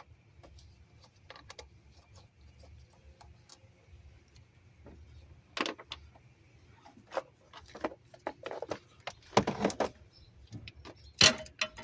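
Scattered metallic clicks and clinks of hand tools working on a starter motor's mounting bolts, with a few louder clanks in the second half.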